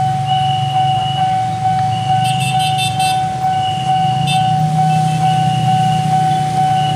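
Railroad level-crossing warning alarm sounding a steady, pulsing electronic tone. Underneath it is the low rumble of engines.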